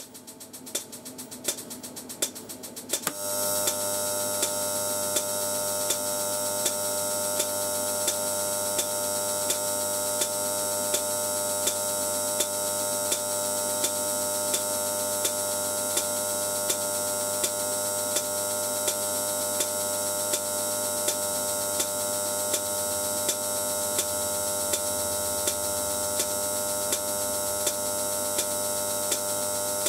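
High-voltage glow discharge from an electrode tip into electrolyte. It crackles rapidly and grows louder at first, then settles about three seconds in into a steady electrical buzz and hiss at mains-hum pitch, with a light tick repeating at regular intervals.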